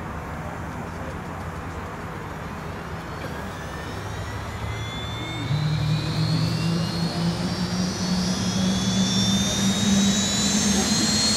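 Helicopter turbine engines spooling up: a whine climbing steadily in pitch from about three seconds in, under a low hum that grows louder about halfway through as the engines and rotors come up to speed.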